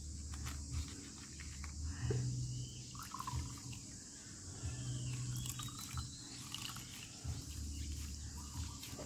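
Green plant juice trickling and dripping into a plastic cup as a cloth bag of pounded Siamese cassia leaves is squeezed out, with a few faint chirps in the background.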